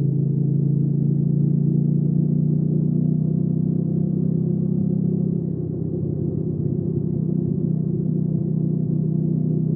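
Hyosung GV300S Aquila 300's V-twin engine running steadily under way. The engine eases off briefly about halfway through, then picks up again.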